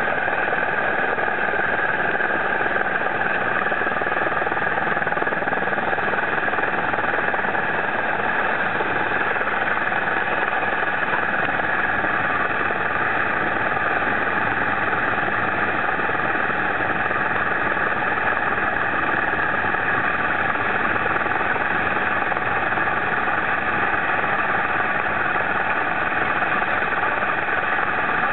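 Sikorsky S-76 twin-turbine helicopter running steadily in a hover, heard from on board: an unbroken turbine and rotor drone with a steady whine in the upper range.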